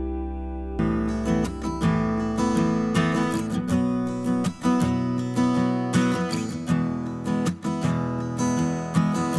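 Background music: a held chord, then acoustic guitar strumming comes in just under a second in.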